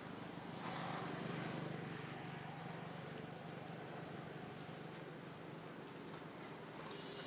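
A steady low hum over a background hiss, with a faint constant high-pitched whine; the hum eases off somewhat after the middle.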